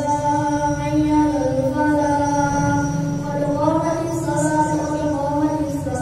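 A single voice chanting in long, drawn-out notes that slide slowly from one pitch to the next, in the melodic style of Islamic chanted recitation.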